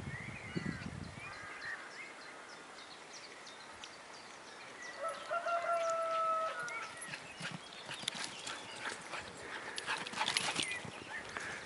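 Dogs running across grass toward the microphone, with a rush of quick, short sounds as they close in near the end. A steady whistle sounds about five seconds in.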